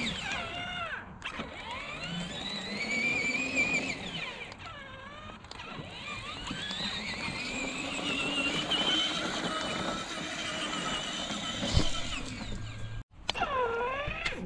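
Electric drive motors of a 24V kids' ride-on UTV whining as it drives, the pitch rising and falling with speed. The sound cuts out briefly near the end, then a short whine dips and climbs again.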